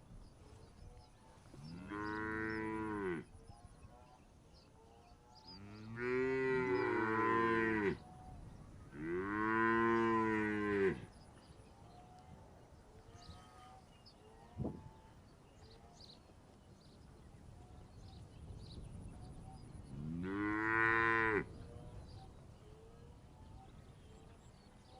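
Cattle mooing: five long calls, each rising then falling in pitch, with two cows calling over each other at once around the second call. A single short click comes about halfway through.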